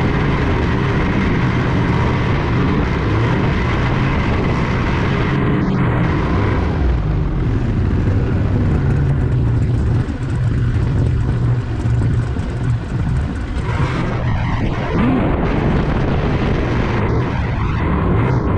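Steady low rumble of a vehicle on the move: engine drone and road noise, with no break or change in character.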